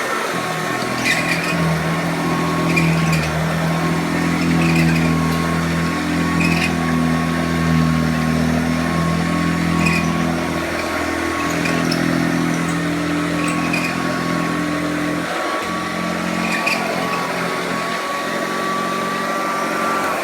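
Hoover Junior 1224 upright vacuum cleaner running on carpet, its motor giving a steady high whine under a lower churning hum from the beater-bar agitator, with scattered small clicks. The low hum shifts and briefly drops out as the cleaner is pushed back and forth.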